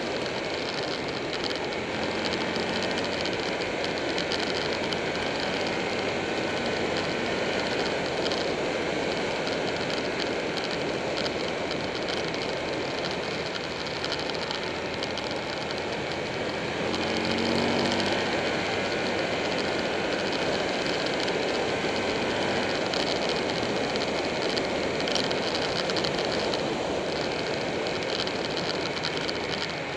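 Buell 1125R's V-twin engine running at speed on the road, under a heavy steady rush of wind and road noise. The engine note rises briefly a little past halfway as the throttle opens.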